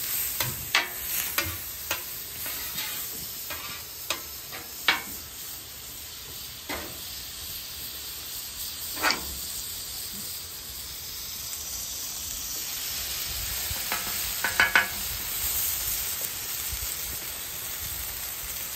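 Butter and oil sizzling on a hot flat-top griddle, with a metal spatula clicking and scraping on the steel plate, several times in the first few seconds and again about fourteen seconds in.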